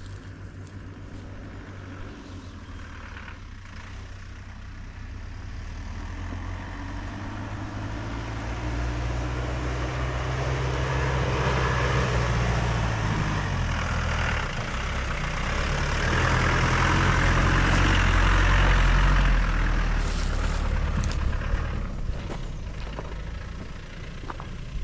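Off-road vehicle's engine running under way, its note shifting in pitch about halfway through, with a rushing noise above it. It grows louder to a peak about three-quarters of the way through, then eases off.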